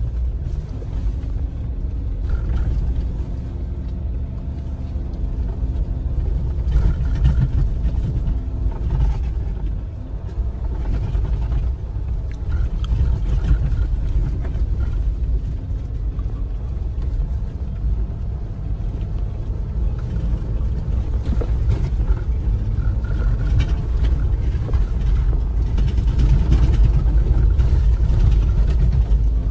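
Steady low engine and tyre rumble of an off-road vehicle driving over desert sand, heard from inside the cabin.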